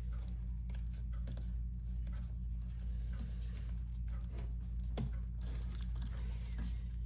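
Light clicks and scrapes of hands handling laptop parts, with a sharper click about five seconds in, over a steady low electrical hum.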